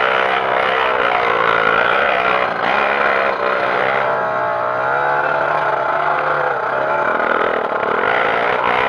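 Trail motorcycle engine running under load, its revs rising and falling unevenly.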